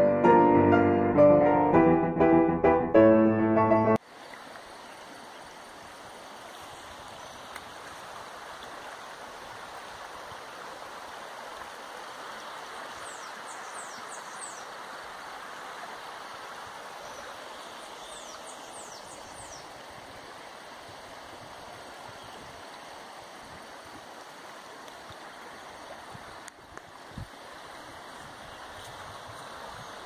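Piano-led music that cuts off abruptly about four seconds in. It gives way to a shallow rocky stream running with a steady water hiss. Faint short high chirps come twice over the water.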